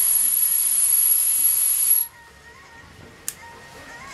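DeWALT cordless drill running steadily with a high whine as it drills into a metal bar, then stopping suddenly about two seconds in. A single sharp click follows about a second later.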